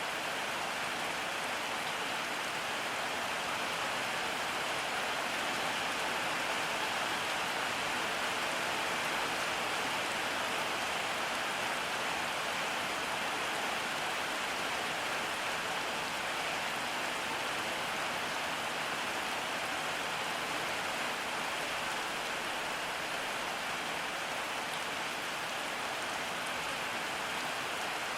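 Steady rain falling, an even hiss of rain on surfaces with no let-up.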